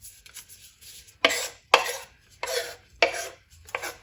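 Knife chopping ginger into small pieces on a cutting board: about five separate sharp knocks, roughly half a second apart.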